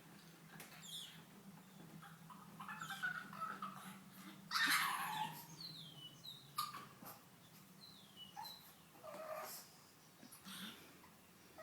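Pug making a string of short, high-pitched squeaks and whines that sound like a dolphin, several sliding down in pitch; the loudest comes about halfway through.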